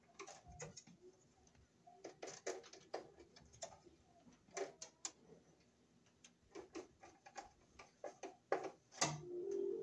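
Irregular light clicks and taps of a screwdriver and copper wire against the neutral bar and steel enclosure of a breaker sub-panel, as the neutral wire is set under its terminal screw and tightened. The loudest clicks come near the end.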